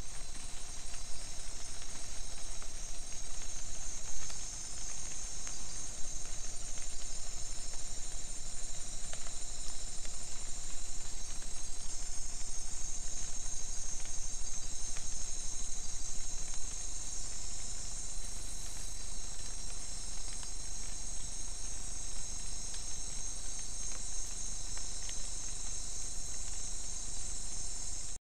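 Night-time chorus of crickets and other insects in tropical forest, a steady, unbroken high-pitched trilling, picked up by a trail camera's microphone, with a faint steady lower tone beneath it.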